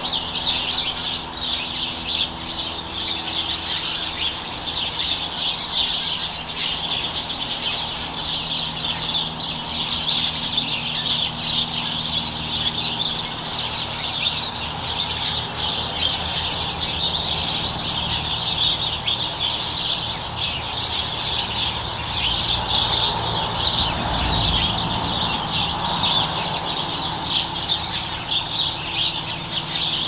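Many small birds chirping at once, a continuous chatter of quick high chirps.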